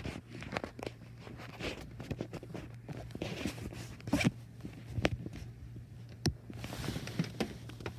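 Scratchy rustling and rubbing with many small clicks: a hand pushing a small toy across shaggy carpet close to the microphone, over a faint steady low hum.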